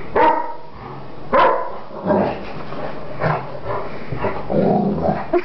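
Greater Swiss Mountain Dog barking and growling in play: two sharp barks in the first second and a half, then a rough, continuous run of growling.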